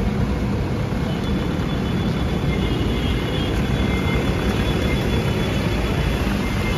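Steady low rumble of vehicle noise with no distinct events.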